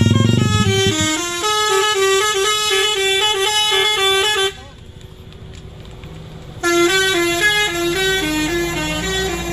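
A bus's musical 'telolet' air horn playing a stepped tune, breaking off for about two seconds midway and then starting again. The low rumble of the coach's diesel engine fades out in the first second.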